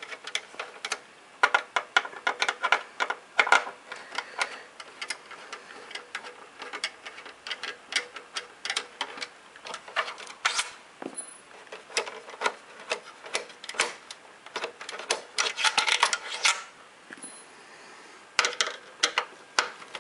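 Xbox 360 Slim's plastic casing being worked apart by hand: many sharp, irregular clicks and snaps in quick clusters, the sound of the case clips letting go.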